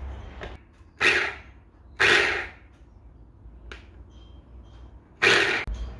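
Electric mini chopper pulsed three times, each short burst of the motor and blade whirring through fresh herbs, with small clicks between pulses.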